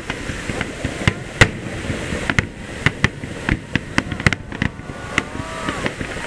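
Aerial firework shells bursting in a rapid, irregular string of sharp bangs, several a second, the loudest a little over a second in.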